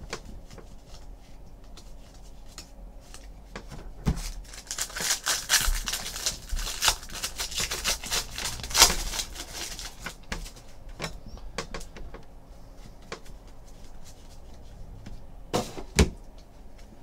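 Foil baseball-card pack wrappers crinkling and tearing open by hand, with the cards rubbing and flicking as they are handled; the crackling is busiest from about four to ten seconds in, with a couple of sharp snaps near the end.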